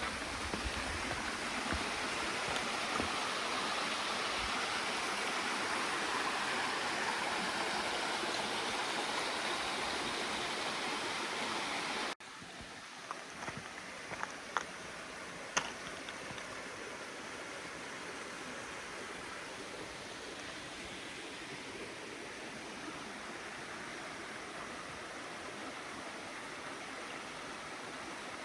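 Forest stream flowing with a steady rush of water. About twelve seconds in the sound cuts out for an instant and comes back a little quieter, with a few short sharp ticks soon after.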